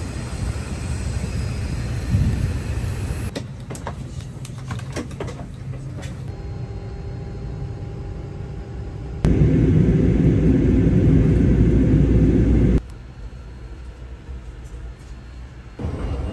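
A run of short clips of vehicle rumble, changing abruptly at each cut; the loudest is a heavy, steady low rumble lasting about three and a half seconds, about nine seconds in.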